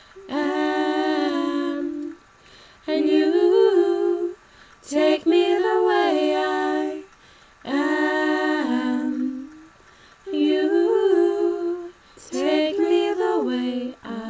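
Girls' voices singing a cappella: slow, held phrases of a song, each one to two seconds long with short breaths between, the last few stepping down in pitch toward the close.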